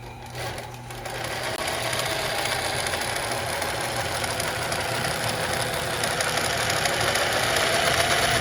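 Brother TZ1-B652 industrial zigzag sewing machine running fast with a steady mechanical rattle over the motor's low hum. It starts up about half a second in and gets slightly louder toward the end.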